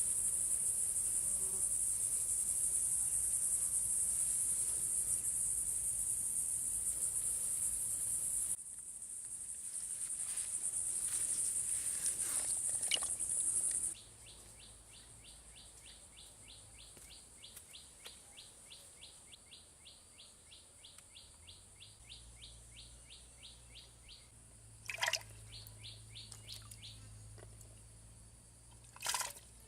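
Steady high-pitched insect buzzing, typical of crickets, that stops abruptly about halfway through. A faint, even ticking about four times a second follows, with two sharp bird-like chirps near the end.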